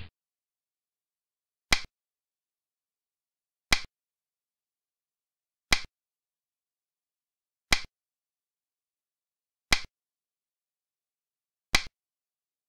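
Chinese chess (xiangqi) move sound effect: a short, sharp click as each piece is placed on the board, six times, one every two seconds, with silence between.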